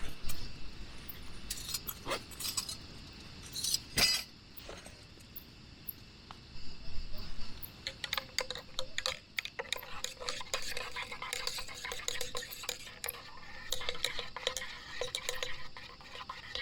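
Metal utensils clinking against cookware: a few separate clinks, then from about eight seconds in a continuous run of quick scraping and clicking, as when stirring food in a pot.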